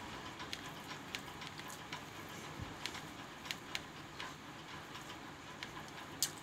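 A person eating rice, chicken and vegetables by hand: faint chewing and mouth sounds, heard as irregular small clicks and ticks, with a sharper click near the end.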